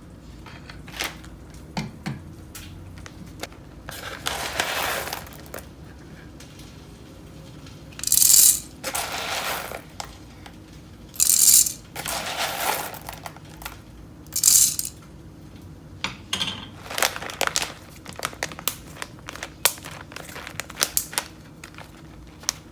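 Packaging rustled and crinkled in several loud bursts, with many small clicks and knocks of objects being handled and set down.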